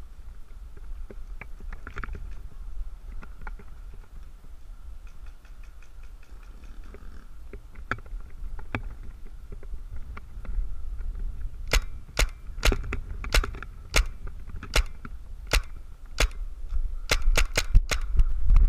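Paintball marker firing a string of sharp shots, about two a second, getting closer together near the end, after scattered fainter pops from further off. A low rumble of wind on the microphone runs underneath.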